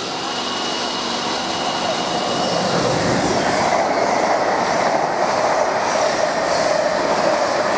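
Mark 3 passenger coaches passing through the platform at speed: a steady rush of wheels on rail that grows louder about two seconds in, with a repeating clatter less than a second apart as the wheels pass.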